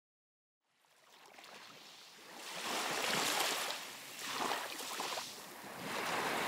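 Sea surf washing, starting about a second in and swelling and ebbing several times.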